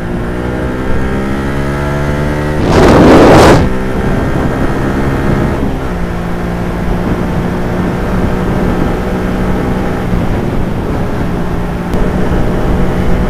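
Motorcycle engine running under the rider, its pitch climbing as it accelerates for the first couple of seconds, then holding steady at cruising speed. About three seconds in a loud rush of noise lasts about a second.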